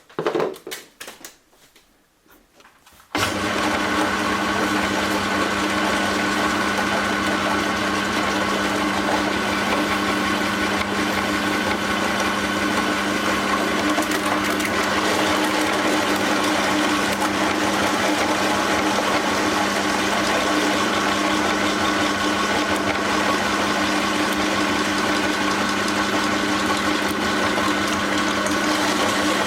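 A few short crinkling handling noises, then about three seconds in an electric meat grinder switches on abruptly and runs with a steady motor hum.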